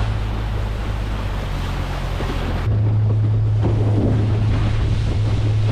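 A boat's motor drones steadily while under way, with wind rushing over the microphone and water noise from the hull. About halfway through the sound changes abruptly and the motor's drone becomes louder.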